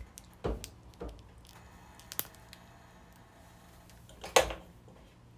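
Kitchen handling sounds at the stove: a few soft knocks, a sharp click about two seconds in, and a louder knock near the end, over a faint steady hum.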